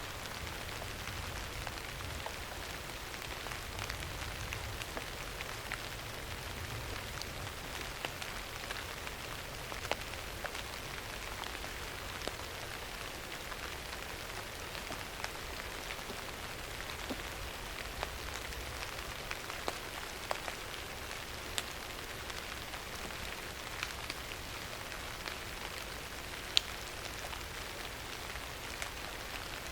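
Steady rain falling, an even hiss with scattered sharp, louder drops striking now and then.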